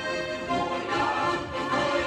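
Two diatonic button accordions playing a folk tune together, with a ukulele strummed along.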